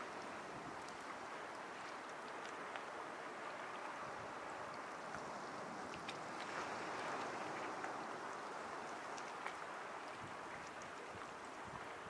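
Sea waves washing against the shore: a steady rush of water that swells about halfway through, with faint light clicks scattered through it.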